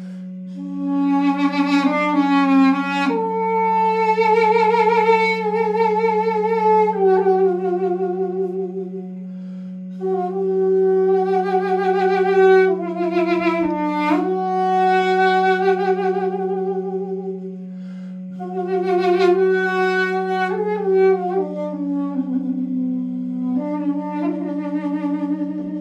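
Armenian duduk, a double-reed woodwind, playing a slow melody with wide vibrato and sliding notes in three phrases with short breaks, over a steady low drone note.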